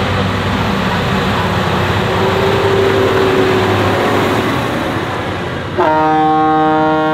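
Massey Ferguson 7726 S tractor's six-cylinder diesel running hard as it climbs under load. About six seconds in, a loud horn blares for about a second and a half.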